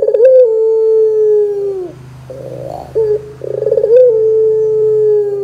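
Ringneck dove (Barbary dove, the Indonesian 'puter') cooing: a long, held coo that drops away at its end about two seconds in, then a short rolling phrase that leads into a second long, held coo.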